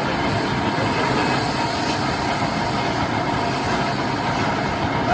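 Heavy machinery running steadily with a constant mechanical din.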